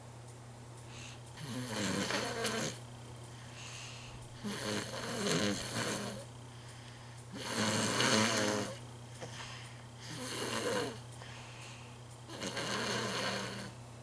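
A sleeping toddler snoring: five snores, one about every two and a half seconds, over a steady low hum.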